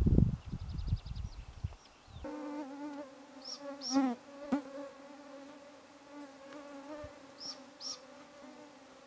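Wind buffeting the microphone for about the first two seconds, then a flying insect's steady buzz close to the microphone, wavering slightly in pitch. A small bird gives a pair of short high chirps twice over the buzz.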